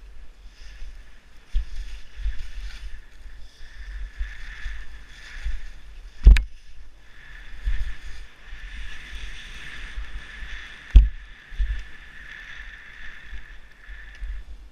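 Skis hissing through powder snow in swells as the skier turns, with low thumps and rumble on the skier's camera. Two sharp knocks stand out, about six and eleven seconds in.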